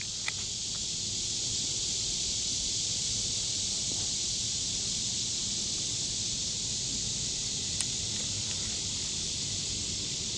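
Steady high-pitched chorus of insects in the lakeside trees, an even, unbroken hiss. Two faint short clicks, one just after the start and one near the end.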